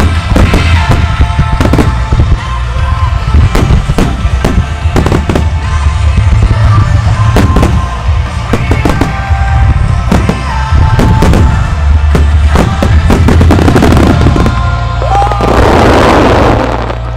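Fireworks finale barrage: a rapid succession of shells bursting with sharp bangs and deep booms, over music. Near the end a dense spell of crackling sparks.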